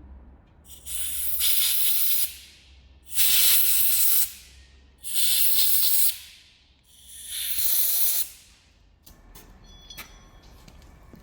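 Four short blasts of compressed air hissing from a workshop air blowgun, each about a second long with gaps between, as the bolt holes are blown clear.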